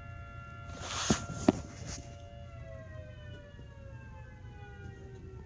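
Outdoor warning siren of the kind sounded for tornadoes, several tones together, held steady and then slowly falling in pitch from about two seconds in. A brief rustle and a sharp click about a second in.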